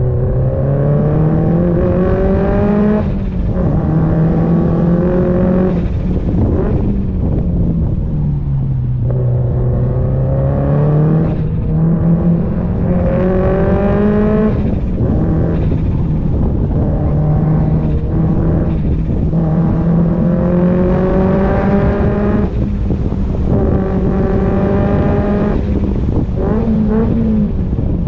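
Exhaust and engine of a hard-driven performance car accelerating through the gears. The revs climb and drop sharply several times as it shifts or lifts off, including one longer fall where it slows.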